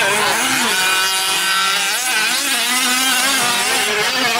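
Small two-stroke engines of several 1/5-scale gas RC trucks racing at once, their pitch rising and falling as the drivers throttle up and back off through the turns.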